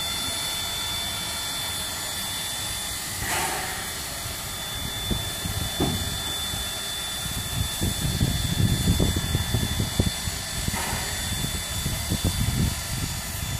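Steady hiss of steam from the NZR Ab-class steam locomotive No. 608 standing in steam, with irregular low rumbling that builds from about five seconds in as the locomotive is turned on the turntable.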